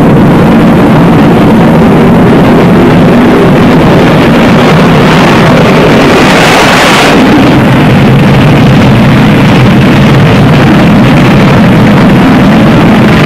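Su-27K carrier fighter's twin jet engines running at full power for a ski-jump takeoff: a loud, continuous rush over a steady low hum, swelling louder for a moment about six seconds in as the jet launches.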